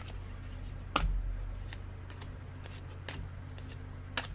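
Trading cards being handled and flipped by hand: a few light clicks and taps, with a soft thump about a second in, over a steady low hum.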